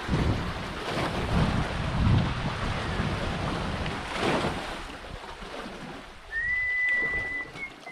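Water splashing and lapping around a small wooden outrigger canoe as it is paddled, with wind buffeting the microphone and one louder paddle swoosh a little past halfway. Near the end comes a high, steady whistle held for about a second.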